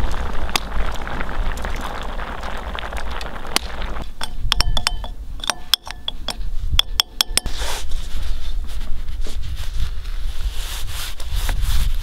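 A metal spoon clinking against a ceramic bowl while stirring saffron into vegetable oil: a quick run of sharp, ringing clinks lasting about three seconds, coming after a steady rushing noise.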